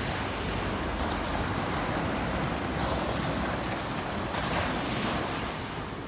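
Small ocean waves breaking and washing up a sandy beach: a steady hiss of surf that swells a few times as each wave comes in.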